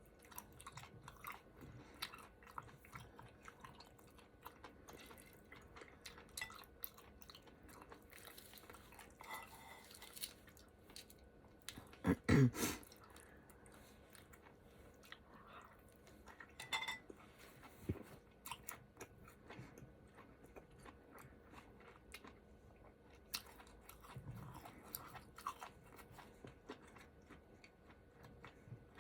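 Close-miked chewing of ramen hotpot, with many small wet mouth clicks and bites. There is one louder, lower sound about twelve seconds in.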